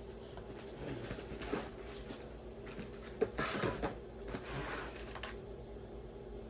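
Jewelry being handled: small clicks and rustling as stone-bead necklaces are moved and set down, with a sharp tap about three seconds in and a flurry of handling noise just after, over a faint steady hum.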